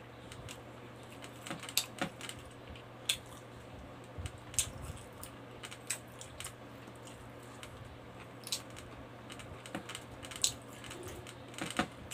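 Close-miked mukbang eating sounds: irregular small wet clicks and smacks of lips and chewing as rice and pork adobo are eaten by hand.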